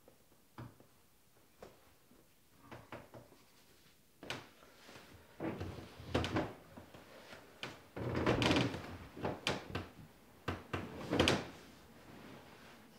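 Scattered light knocks and clicks, then louder rustling and creaking as a person shifts about and lies down on an old wooden sofa; loudest a little past the middle.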